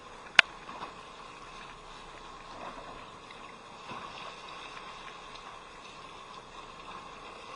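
Steady background noise aboard a small fishing boat at sea, water against the hull with soft swells in level, and one sharp click about half a second in.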